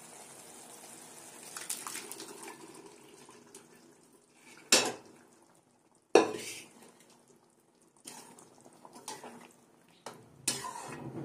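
Steel spatula-ladle knocking and scraping against a metal kadhai of chickpea curry. Two sharp metal knocks come about a second and a half apart, then lighter taps and stirring scrapes build near the end, over a faint simmering hiss at the start.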